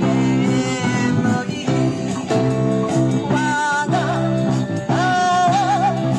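Live band playing through PA speakers: electric guitars, drums and keyboard behind a woman singing. She holds several long notes with vibrato in the second half.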